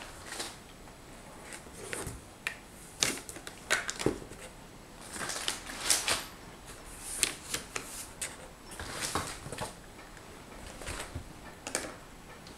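Small metal cat-food tins being lifted out of a cardboard box and set down on and beside one another: an irregular run of clicks and knocks, with short stretches of rustling from the box.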